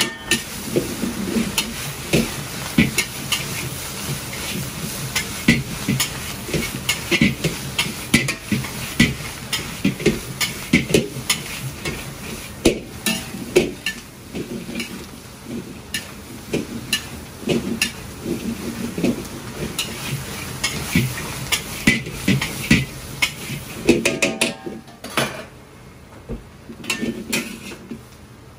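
A metal wok ladle scrapes and knocks against a carbon-steel wok as fried chicken pieces are stirred and tossed, with the food sizzling underneath. The clatter comes in quick, uneven strokes, two or three a second, and eases off near the end.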